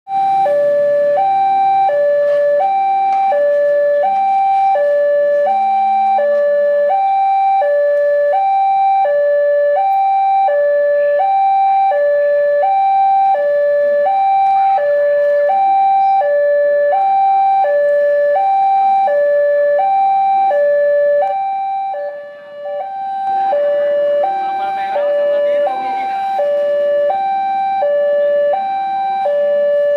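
Railway level-crossing warning alarm: a loud electronic two-tone signal, alternating evenly between a higher and a lower note, each held a little under a second. It sounds a train's approach. It briefly dips about two-thirds of the way through, and a stretch of extra noise joins it for a few seconds after that.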